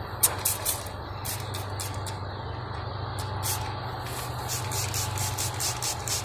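Hand trigger spray bottle spritzing sugar water onto a package of honey bees: a run of short hissing squirts, irregular at first and then about four a second near the end.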